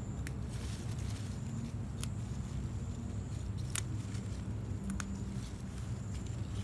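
Red amaranth stems being snapped off by hand, four sharp snaps a second or two apart with leaves rustling, over a low steady outdoor rumble.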